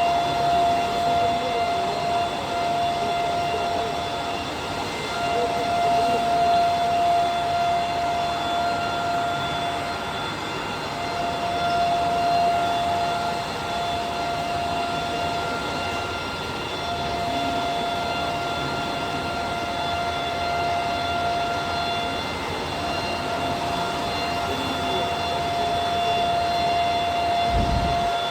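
Bacci CNC wood-machining centre running: a steady high-pitched whine over constant machining noise, the whine dropping out briefly several times.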